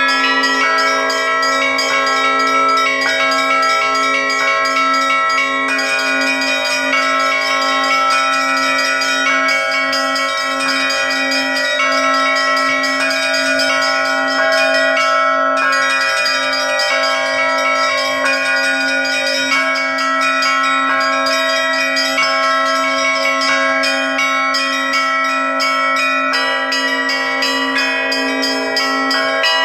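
A set of Russian Orthodox church bells cast by the LITEX foundry, rung by hand in a continuous zvon: the small treble bells are struck in quick succession over the middle bells, and a steady low bell tone sounds underneath throughout.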